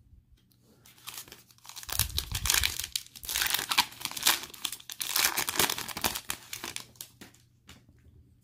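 Foil wrapper of a 2020 Panini Mosaic football card pack being torn open and crinkled by hand, starting about two seconds in and dying away near the end.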